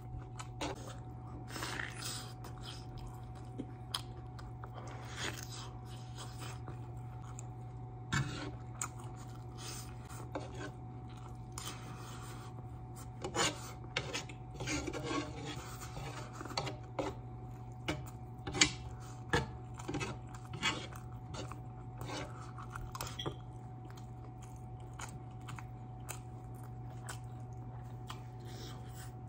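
Metal spoon scraping and clicking against a takeout food container, in scattered short strokes that come thickest in the middle, with some chewing. A steady low hum runs underneath.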